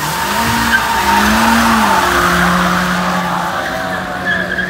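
Car doing a burnout: spinning tyres squeal and hiss loudly while the engine is held at high revs, its pitch wavering for the first two seconds and then holding steady.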